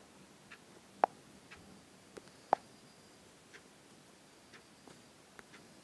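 Faint, sparse ticks over low room hiss, roughly one a second, with two sharper clicks about one and two and a half seconds in.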